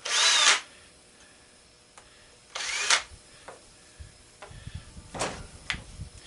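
Cordless power drill/driver spinning up and stopping in two short bursts, about two and a half seconds apart. These are followed by light knocks and clicks of metal parts being handled.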